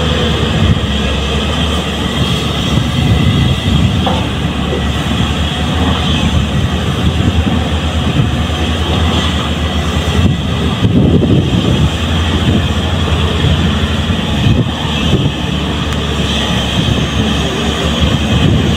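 JCB crawler excavator's diesel engine running steadily under load as it digs sand and swings to load a dump truck, with a low drone and a surge about ten seconds in as the bucket is worked.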